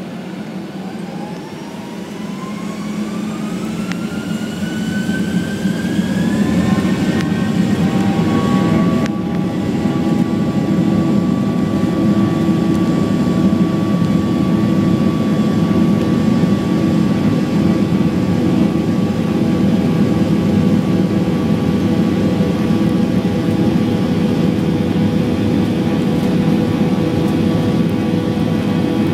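Boeing 737-800's CFM56-7B turbofan engines spooling up to takeoff thrust, heard from inside the cabin beside the wing. A whine rises in pitch and the engine noise grows louder over the first seven or eight seconds, then the whine holds steady over a loud, even rumble as the takeoff roll goes on.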